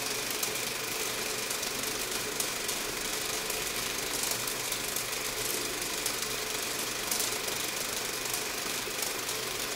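Old-film or static sound effect: a steady hiss with faint scattered crackles and clicks.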